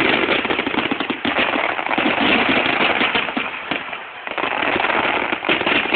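Fireworks bursting overhead in a dense, continuous crackle of many small reports, easing off briefly about four seconds in before picking up again.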